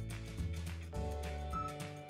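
Background music: an instrumental track with a steady beat over held bass notes and chords, and a short high melody note near the end.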